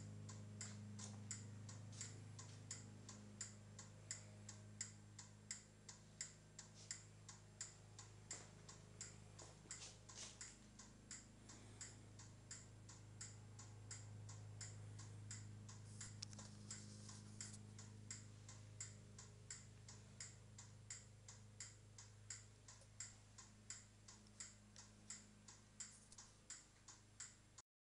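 Motorcycle flasher relay clicking steadily, about two clicks a second, as the lights flash, over a faint steady low hum.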